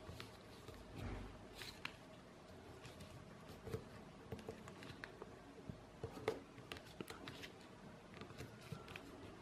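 A sheet of A4 paper being folded and its creases pressed flat by hand: faint scattered rustles and crinkles with a few sharper taps, the loudest about six seconds in.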